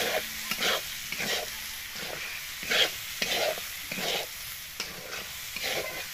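Long metal spatula scraping and stirring red lentils, green chillies and onions as they fry in a hot metal karahi: repeated scrapes against the pan, roughly two a second, over a low sizzle. This is the lentils being fried with the spiced vegetables for khichuri.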